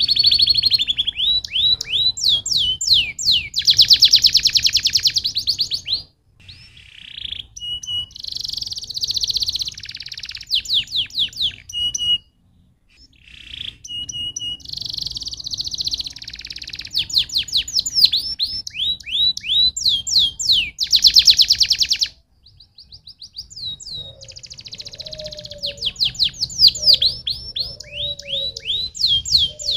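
Domestic canary singing: long phrases of fast trills and runs of quick down-slurred notes, broken by a few short pauses between phrases.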